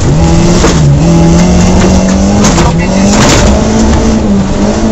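Rally car engine at full throttle, heard from inside the cabin. Its pitch climbs steadily and drops briefly at gear changes, about a second in and again past the middle. Several loud rushes of noise come from the tyres on the wet, rutted track.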